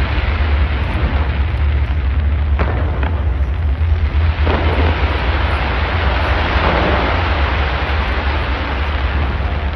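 Fireworks bursting in a dense, continuous barrage with a heavy low rumble, and a few sharper cracks standing out about two and a half, three and four and a half seconds in.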